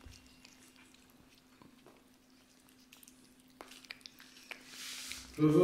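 A kitten and a cat eating wet food off a plate: faint, scattered small clicks and smacks of chewing.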